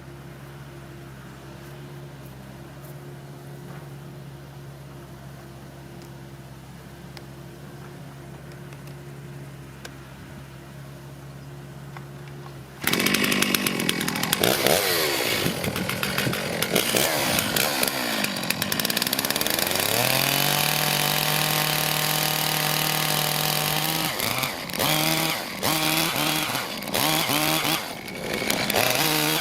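A steady low engine hum, then about thirteen seconds in a chainsaw opens up loudly, revving up and down before holding a steady high speed for a few seconds. Near the end its speed and level drop and recover several times.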